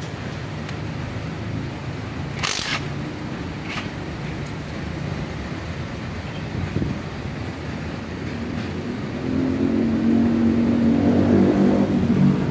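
A vehicle engine running steadily, getting louder about nine seconds in. About two and a half seconds in comes a brief burst from a cordless impact wrench on a bolt of the engine.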